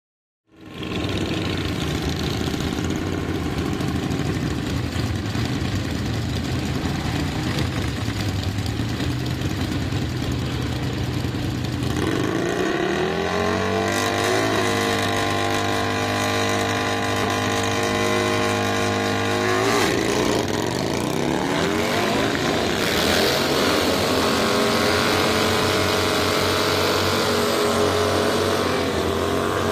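Harley-Davidson V-Rod's liquid-cooled V-twin, bored out to 1340cc, running at the drag-strip start line. Its revs rise and are held high and steady for several seconds. About two-thirds of the way in it drops, then climbs again in repeated rising sweeps as the bike launches and pulls away through the gears.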